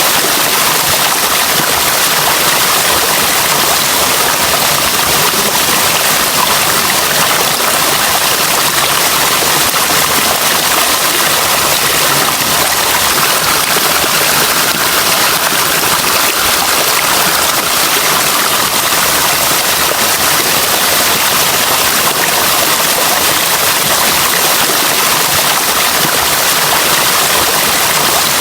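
Running water: a steady, even rush, bright and hissy, with no separate splashes standing out.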